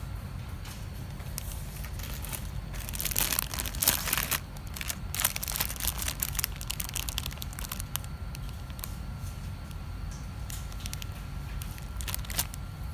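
Plastic bread-bun wrapper crinkling and crackling as it is handled, densest about three to five seconds in, with scattered crackles after. A steady low hum runs underneath.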